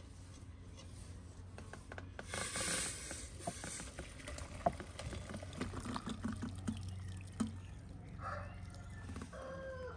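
Hot liquid poured from a steel pot through a fine mesh sieve into a glass bowl, trickling and splashing, with sharp clinks of metal against glass. A bird calls near the end.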